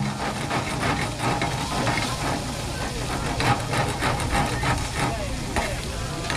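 Chopped meat sizzling on a large wire-mesh grill, with metal tongs and a spatula clicking and scraping against the mesh again and again as the pieces are tossed.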